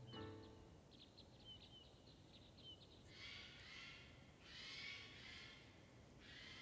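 Faint forest ambience: a few short, high wild-bird chirps, then two soft hissing swells about a second long each.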